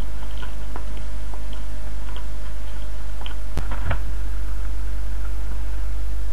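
Faint chewing and small scattered clicks while eating from a plate, over a steady low hum. A sharp click a little past halfway, followed by a couple of soft clicks.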